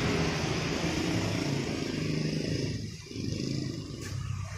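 Low rumble of a motorcycle engine running close by on the street. It drops away about three seconds in, then returns more weakly.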